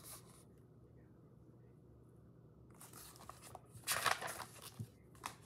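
Paper rustling as the pages of a picture book are handled: a few short crinkly rustles about three to five seconds in, with a small click near the end, over quiet room tone.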